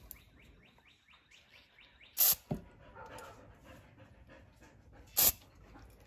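Aerosol carburetor cleaner sprayed in two short hisses about three seconds apart, shot through its straw down the small side holes of a Briggs & Stratton lawn mower carburetor's main jet to clear deposits left by old gas.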